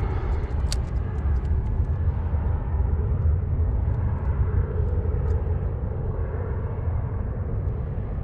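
Steady low rumble of wind buffeting the microphone, with a few faint clicks about a second in.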